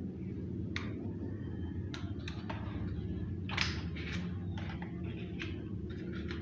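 Scattered light clicks and short rustles of hands handling a drone and its packaging, the loudest about three and a half seconds in, over a steady low hum.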